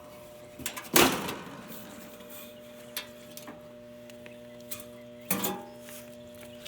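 Electrical hum from a Goodman AC condensing unit's compressor as it tries and fails to start, the 'death buzz' of a failed capacitor. It sets in right away and holds steady, with two sharp knocks, one about a second in and one near the end.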